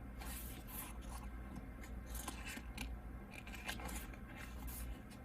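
Paper rustling with short scrapes and crinkles, several a second, as glossy photobook pages are handled and turned.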